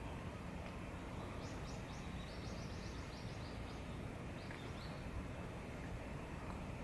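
A small bird singing a quick series of short, high, falling notes for a few seconds over steady outdoor background noise.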